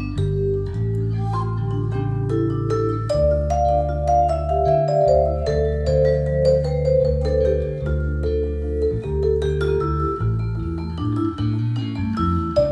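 Instrumental music: a melody of struck, ringing mallet-percussion notes over sustained bass notes.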